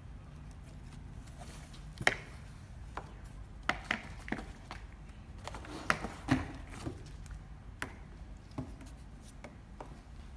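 Irregular taps and knocks on cardboard as a kitten paws at and bumps around a homemade cardboard cat house. The loudest knocks come about two seconds in and a cluster around six seconds in.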